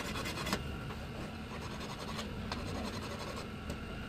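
Steel hand file scraping across an aluminium engine case cover in a few irregular strokes, filing a welded build-up flat.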